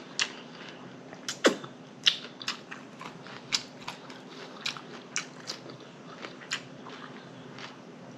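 Close-up chewing of a bun-less double cheeseburger: wet lip smacks and mouth clicks at an irregular pace, one or two a second, the loudest about a second and a half in.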